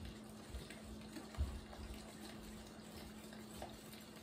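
Faint sloshing of a milk-and-egg mixture being poured from a jug into a glass bowl of flour-and-butter mix while a wire whisk stirs it, with a soft knock about a second and a half in. A low steady hum runs underneath.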